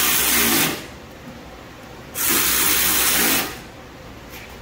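Power ratchet running in short bursts of about a second, with a hissing whir, as it drives the 8 mm panel bolts back into a generator: one burst ends shortly after the start, a second runs in the middle, and a third begins at the very end.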